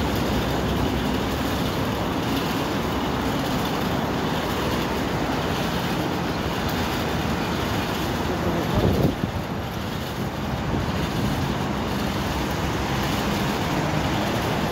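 Steady road traffic noise from the streets below, with a brief louder rush about nine seconds in.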